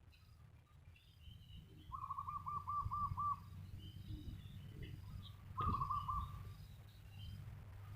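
A bird calling a quick run of about six clear repeated notes, then a shorter run about three and a half seconds later, with smaller birds chirping faintly over a steady low hum. A single sharp knock lands just before the second run.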